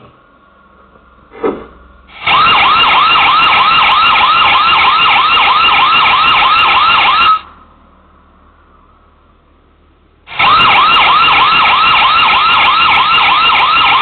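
Loud electronic alarm siren of an AI security camera, a fast warbling wail of about three sweeps a second, set off because the camera detected intruders. It sounds in a burst of about five seconds starting about two seconds in, stops, and starts again about ten seconds in.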